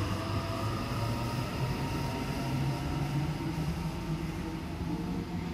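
Sydney Trains Waratah (A-set) double-deck electric train pulling away from the platform, its traction motors whining with tones that slowly rise in pitch as it accelerates, over the rumble of the wheels.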